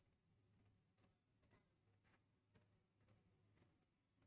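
Faint computer mouse clicks, about one every half second, over near-silent room tone.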